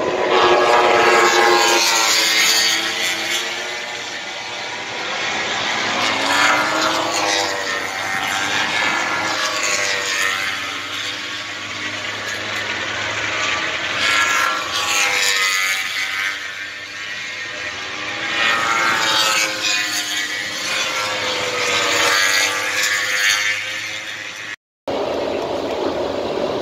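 Grand Prix racing motorcycles passing one after another, their engines swelling and gliding up and down in pitch as they brake, change gear and accelerate through a corner. Near the end the sound cuts off for a moment and gives way to a steadier engine hum.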